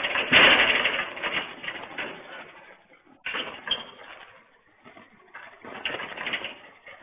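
A metal gate rattling and knocking as it is climbed, heard through a low-quality security-camera microphone. Dense clatter over the first two seconds, a sudden fresh rattle a little after three seconds, and another burst near six seconds.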